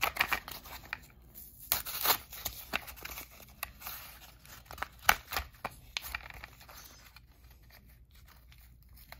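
Cardboard and clear plastic packaging being pulled apart and torn open by hand, in irregular crackles and rips. The sounds are busier in the first half and thin out to occasional small crinkles near the end.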